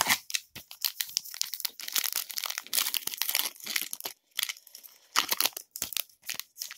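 Foil wrapper of a trading card pack crinkling and tearing as it is opened by hand, an irregular run of crackles and rustles with short pauses.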